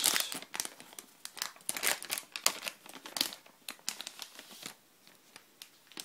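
SSD's anti-static bag crinkling as it is opened by hand: a dense run of sharp plastic crackles that thins out to a few scattered ones after about four and a half seconds.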